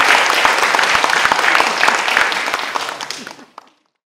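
Audience applauding, the clapping fading away about three and a half seconds in.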